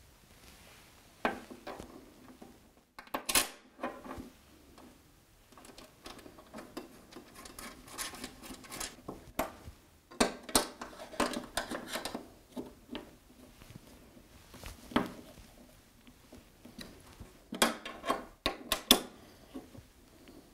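Bolts being tightened with a hand driver through a metal display-arm bracket on the milling machine's column panel: irregular metallic clicks, clinks and short scrapes, with a few sharper knocks about three seconds in, ten seconds in and near the end.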